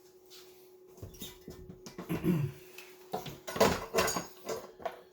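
Small objects being handled and set down on a workbench in a series of irregular knocks and light clatters, over a faint steady hum.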